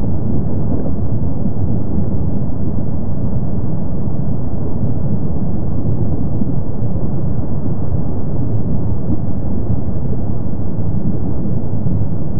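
Kilauea's summit lava lake erupting, its lava fountains making a steady low rumble with no separate blasts.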